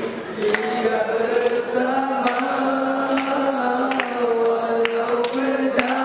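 A large group of teenagers singing together in unison, holding long notes that step from pitch to pitch.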